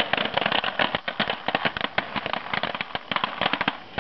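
Jiffy Pop popcorn popping inside its foil pan over a camp stove: a dense, rapid, irregular stream of sharp pops, the kernels at full popping.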